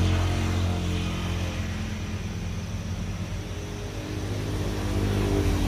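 Motor traffic on a nearby main road: vehicle engines drone low and steady, easing off in the middle and swelling again near the end as another vehicle passes.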